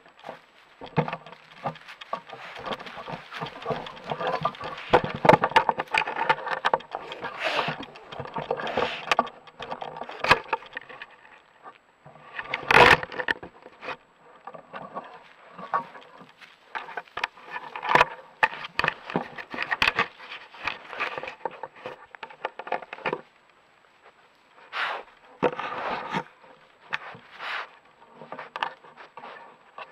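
Scraping, rustling and crackling right against the trail camera, full of sharp clicks, in uneven surges with short lulls, while the camera is being jostled.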